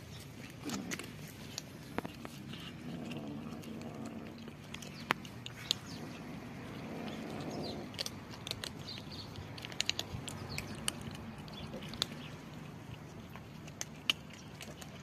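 Several kittens crunching dry kibble: scattered sharp crunches and clicks, several in quick succession around the middle, over a low steady hum.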